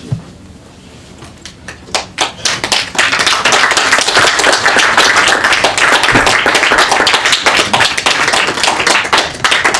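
A small audience clapping: a few scattered claps about a second and a half in, building into steady applause that stops suddenly near the end.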